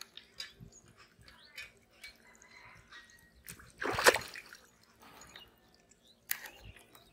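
Water splashing and dripping in small scattered clicks, with a louder splash about four seconds in and another sharp one after about six seconds.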